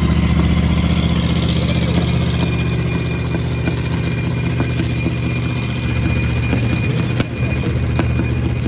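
A hot rod's engine idling steadily with an even, low firing pulse.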